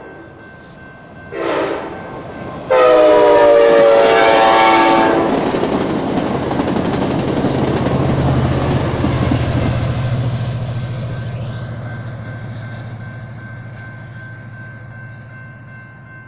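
Amtrak Talgo train horn giving a short blast and then a long, loud blast for the grade crossing. The train then passes with a steady low rumble and rail noise that slowly fades as it draws away.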